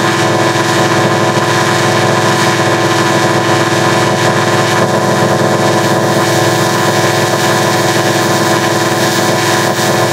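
Logo-jingle audio heavily processed with harmonic-adder and pulse effects: a loud, unchanging drone of many stacked steady tones with a fast buzzing flutter underneath.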